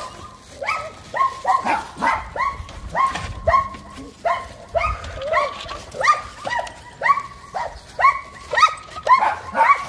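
A dog barking rapidly and steadily, about two short high-pitched barks a second.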